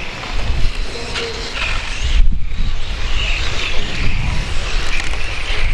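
Electric radio-controlled touring cars racing around the track: a high, wavering whine that rises and falls as the cars pass, over a steady low rumble.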